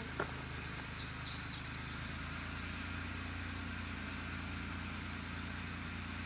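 Outdoor background: a steady low rumble with a steady high-pitched tone over it. A bird chirps a quick series of short gliding notes in the first two seconds.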